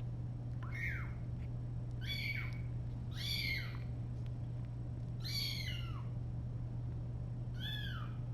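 Young kitten, about three weeks old, mewing five times: short high cries that rise and fall in pitch, about half a second each, over a steady low hum.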